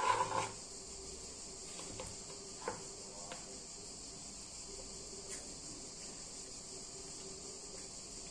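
Quiet handling sounds of a ripe tomato being peeled by hand: a short cluster of small knocks at the start, then a few faint soft clicks, over a steady high-pitched hiss.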